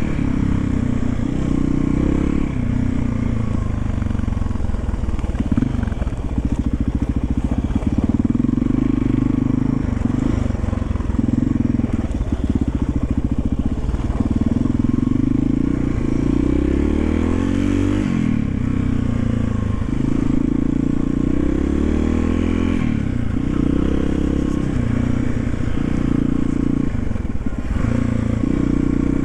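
1991 Yamaha XT350's single-cylinder four-stroke engine running as the bike is ridden off-road, its pitch rising and falling with the throttle.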